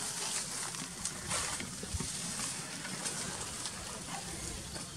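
Short, faint scratching and rustling in dry soil and leaf litter as a baby macaque forages with its hand, over a steady high hiss of outdoor ambience.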